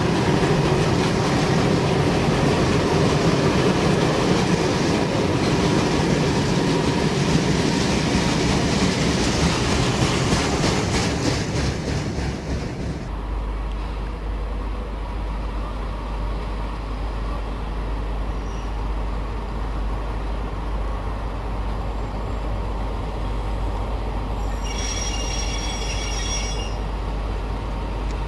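Freight wagons rolling past close by with a steady rumble and clatter of wheels, cutting off abruptly about 13 seconds in. After that a quieter low steady hum as a diesel locomotive approaches slowly, with a brief high squeal lasting about two seconds near the end.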